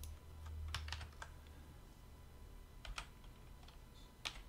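Computer keyboard keys and mouse buttons clicking as shortcuts and selections are entered: a quick run of four or five clicks about a second in, then single clicks near three seconds and near the end. A faint low hum sits under the first second.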